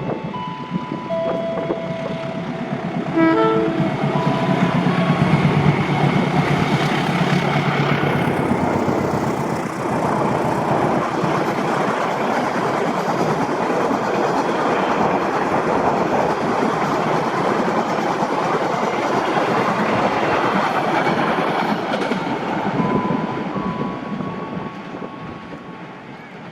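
Parcel Utara train passing at speed: the locomotive's engine comes in loud about three seconds in, then a long even rumble and clatter of wagons rolling by that fades away near the end.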